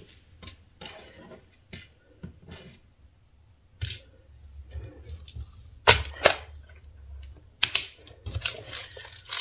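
Clear plastic compartment bead box being handled, with sharp plastic clicks from its lid and beads shifting inside; the loudest clicks come about six seconds in and again near eight seconds.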